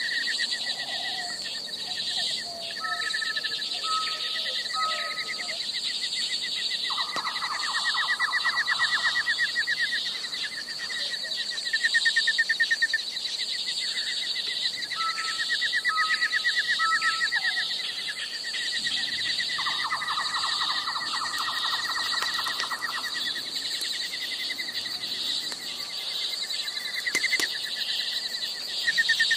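Birds chirping and calling steadily, with short repeated trills and bursts of rapid chirping; the same pattern comes round again about every twelve seconds, like a looped nature-ambience track.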